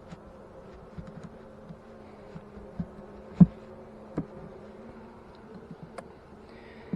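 Italian honey bees buzzing with a steady hum around an open hive. A few sharp knocks from frames being handled in the wooden hive box, the loudest about three and a half seconds in.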